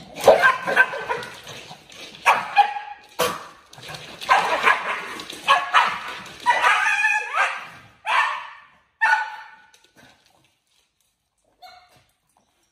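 Two corgis barking and yapping at each other in a run of sharp outbursts as they squabble over their food bowls. The outbursts stop about ten seconds in.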